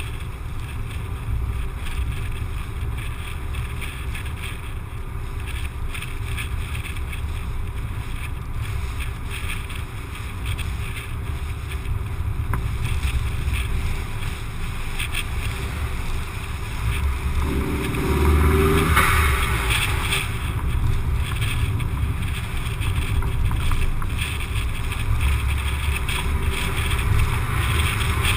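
Steady low wind and road rumble on an action camera mounted outside a moving car. About two-thirds of the way through, a louder rush swells and fades as an oncoming lorry passes.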